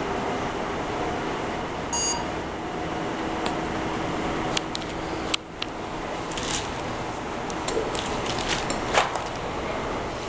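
A single short electronic beep about two seconds in, over a steady background hum, followed by scattered light clicks and taps from handling a phone.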